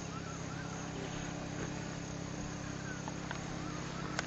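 Steady outdoor background hum with a few faint short chirps scattered through it.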